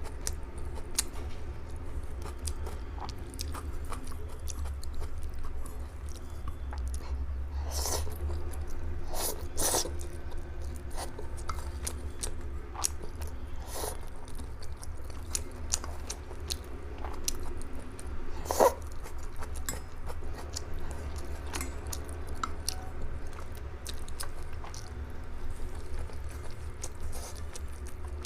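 Close-miked chewing and biting of kaolengmian (grilled cold noodles), with wet mouth sounds and many small sharp clicks. There are a few stronger bites, the loudest about 18 seconds in, over a steady low hum.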